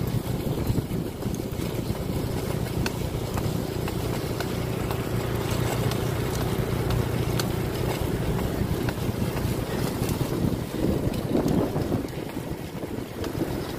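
Wind rushing over the microphone of a camera moving along the road, with a motor engine running steadily underneath as a low hum.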